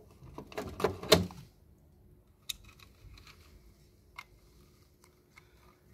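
Hands working a wire into a time relay's terminal in an electrical control panel: a quick run of small clicks and rustles in the first second and a half, then a few single clicks.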